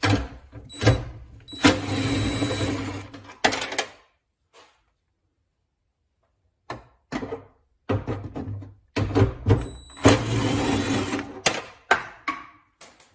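Cordless 1/4-inch impact driver running in short bursts, spinning off 10 mm nuts. There are two longer runs of a couple of seconds, one about a second and a half in and one near the end, with sharp clicks and knocks from the tool and nuts between them.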